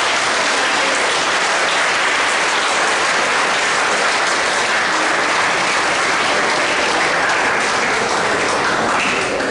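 A seated crowd of students applauding steadily, dying down near the end.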